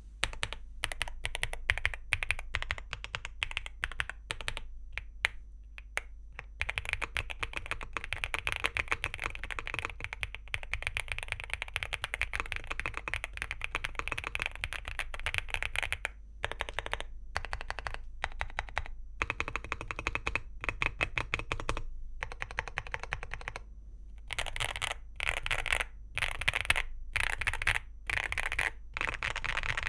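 Typing on an Angry Miao Relic 80 mechanical keyboard with Angry Miao Icy Silver Pro linear switches and Cherry-profile keycaps: a fast, continuous clatter of keystrokes with brief pauses, breaking into short separate bursts near the end.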